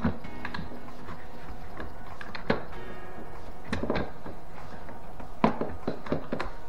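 Background music, over which a run of sharp clicks and knocks sounds as plastic parts of a dishwasher door are handled and fitted back together; the loudest knocks come about two and a half and five and a half seconds in.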